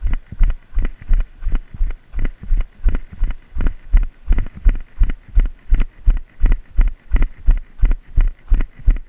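Running footfalls on a dirt trail, a steady rhythm of dull thuds about three a second.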